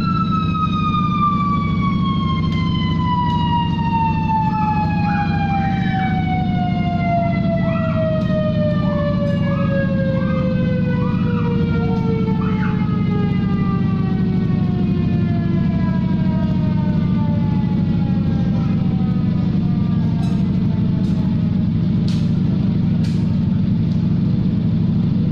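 Homemade siren sounding one long tone that falls slowly and steadily in pitch for about fifteen seconds, then fades out, over a steady low hum.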